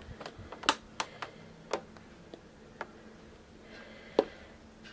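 Light, scattered clicks and taps of handling, about six of them spaced irregularly, with a sharper one near the end, over quiet room tone.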